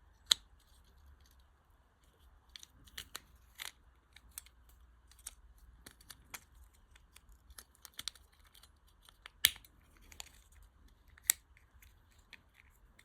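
Scattered small clicks and taps of a Ford flip key's plastic housing and flip-blade spring being handled and fitted by hand, with three sharper clicks: just after the start, about nine and a half seconds in, and about eleven seconds in.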